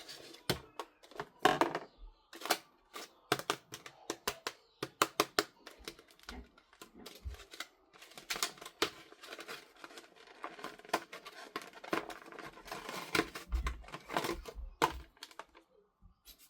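Plastic toy parts and packaging being handled and unboxed: irregular sharp clicks and taps with bits of rustling and crinkling.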